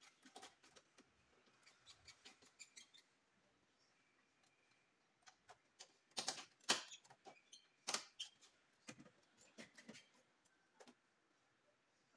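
Scattered light clicks and knocks of hand work on a Toyota Innova's front bumper fasteners, plastic clips and screws being worked loose for bumper removal. They come in two spells with a short lull between, the loudest cluster six to eight seconds in.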